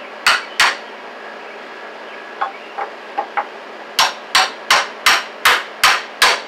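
Hammer striking a reclaimed wooden bed frame to knock its boards loose: two sharp blows, then a few lighter taps, then a steady run of blows a little under three a second near the end.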